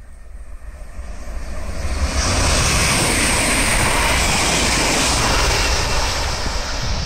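Train passing at speed: a rushing roar that builds over about two seconds, then holds loud and steady. Wind buffets the microphone underneath with a low rumble.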